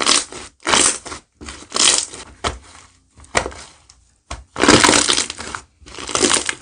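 Slime being pressed and squeezed by hand, giving a series of crackling bursts about once a second, with a longer squeeze a little past the middle.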